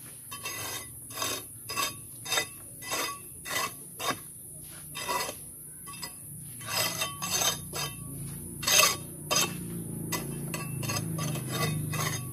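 Short scraping strokes of a small hand tool against a cast concrete block and the gritty soil at its base, about one or two a second at first, then closer together and busier near the end.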